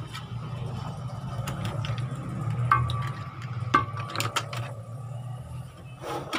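Several sharp clicks and knocks as a CRT TV's circuit board and wiring are handled by hand, over a steady low hum.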